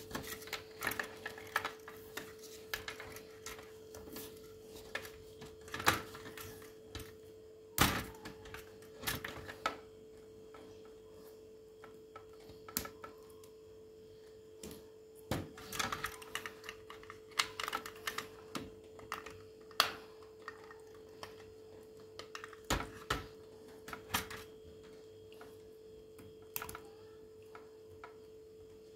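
Irregular clicks and knocks from parts being handled during a dishwasher control-board replacement, some louder than others, over a steady hum.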